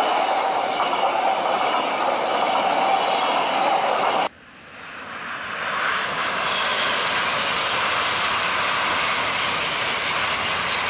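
French TGV high-speed electric train passing close by at speed with a loud, steady rushing noise. About four seconds in, the sound cuts abruptly to a second TGV running past at a distance, its rush swelling over a second or two and then holding steady.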